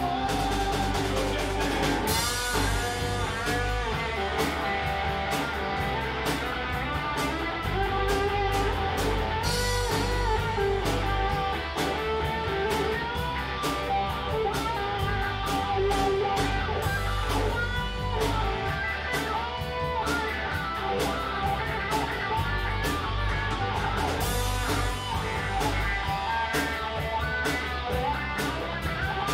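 A live band playing a song: electric guitar lines over steady bass and drums with regular cymbal hits.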